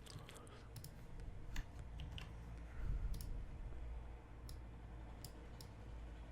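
Faint, irregular computer mouse clicks, about a dozen spread unevenly, over a low steady hum.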